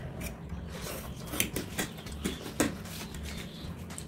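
Metal forks tapping and scraping on ceramic plates while noodles are eaten, a scattered series of short sharp clicks with soft eating sounds between them.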